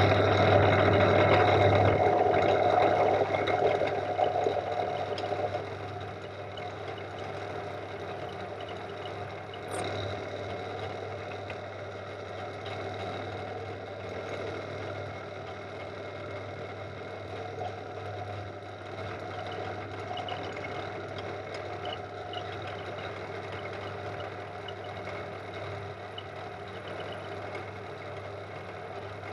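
Pillar drill running as a milling machine, its end mill cutting a Woodruff key slot in a metal shaft: a steady motor hum with cutting noise. It is loudest for the first few seconds, then settles into quieter, even running.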